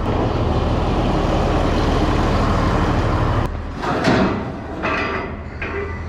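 A vehicle engine running steadily, which stops abruptly about three and a half seconds in. Then a few knocks and scuffs as someone climbs the ladder of a John Deere combine.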